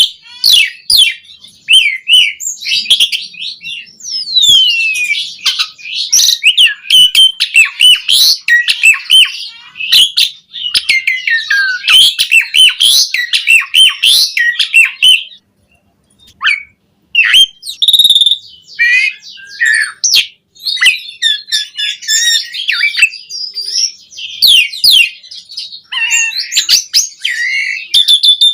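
Javan pied starling (jalak suren) singing a fast, loud, varied jumble of whistles, rising and falling chirps, clicks and harsh squawks, full of mimicked phrases. It breaks off for about a second a little past halfway, then carries on.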